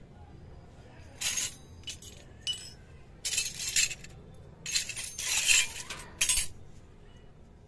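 Miniature stainless-steel toy utensils clinking and rattling against each other and the floor as they are handled and set down, in a series of bright metallic clatters, the longest and loudest about two-thirds of the way in.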